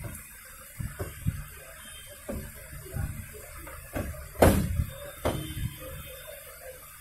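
Irregular clunks and knocks from handling a top-load washing machine's parts during repair, with one loud sharp bang about four and a half seconds in and a lighter one just after.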